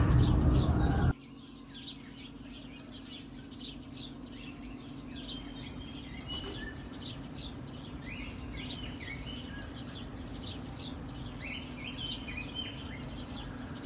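A louder sound cuts off abruptly about a second in. After it, small birds chirp and twitter again and again over a steady low hum.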